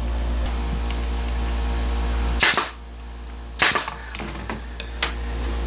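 Nail gun firing twice, about a second apart, driving nails into glued wooden parts, over a steady low hum, with a few faint clicks afterwards.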